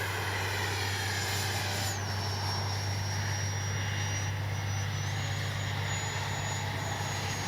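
High-pitched whine of an 80mm twelve-bladed electric ducted fan on an RC jet under power in flight. The whine drops in pitch about two seconds in and climbs back about five seconds in.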